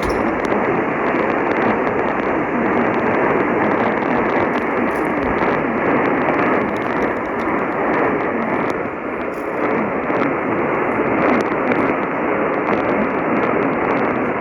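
Radio static: a steady hiss with scattered faint crackles, thin and narrow-band like audio from a weak radio receiver signal.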